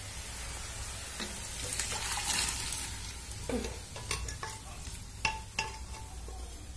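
Vegetable curry frying in a wok on a gas stove, sizzling steadily, with a metal ladle stirring it and clicking sharply against the pan several times in the second half.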